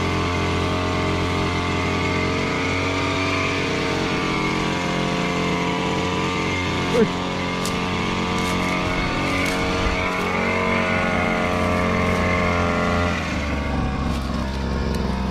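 Small petrol engine of a KOSHIN EP-10P engine-driven power sprayer running steadily at working speed, driving the spray pump. Its note shifts slightly about thirteen seconds in, and a short sharp sound comes through about seven seconds in.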